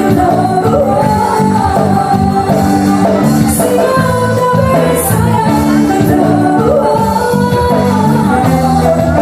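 Live music with a singer: a sung melody over a band with a steady bass line, and a short hissy cymbal-like accent every few seconds.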